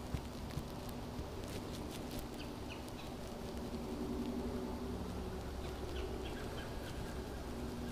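Spinning reel being cranked steadily as a lure is retrieved, a faint low whir, with a few faint bird chirps.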